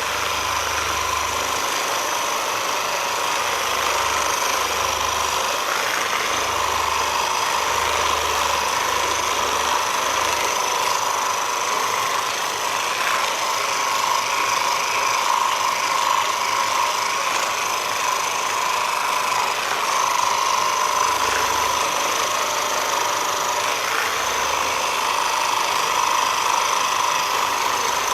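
Percussive massage gun running steadily with a high-pitched whine, worked over a patient's back to loosen the muscles. A low throb comes and goes as the head is pressed in and eased off.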